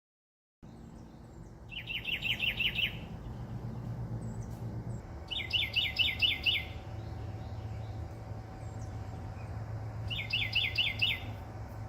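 A bird singing three short phrases, each a quick run of about six clear whistled notes that slide down in pitch, over a low steady hum.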